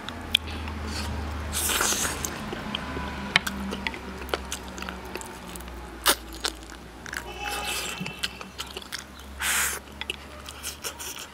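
A person chewing and biting stewed pork trotter with rice, with sharp clicks of wooden chopsticks against a ceramic bowl and two short breathy bursts, one about two seconds in and one near the end.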